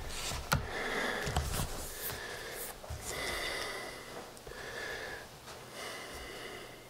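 A person breathing close to a handheld camera's microphone, soft puffs of breath every second or so, with a couple of handling knocks in the first second and a half as the camera is swung round.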